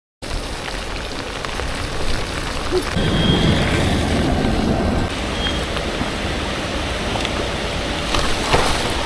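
Rain falling steadily in a thunderstorm, a continuous hiss, swelling louder with more low rumble from about three to five seconds in.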